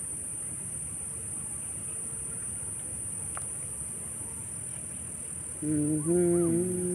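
Crickets chirring in a steady, high, unbroken drone. About five and a half seconds in, a louder, low, long held call starts, with small steps in pitch, and carries on to the end.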